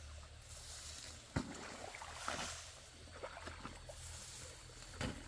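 Rice stalks rustling and muddy water sloshing as hands work at the base of plants in a waterlogged paddy. There are two sharp knocks, one about a second and a half in and one near the end.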